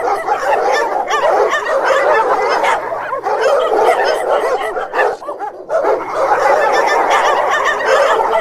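Dogs barking and yapping in a dense, frantic, continuous chorus, with a brief lull about five seconds in.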